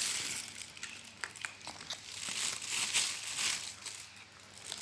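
Crinkling and rustling of something being handled, with a few small sharp clicks, busiest in the middle.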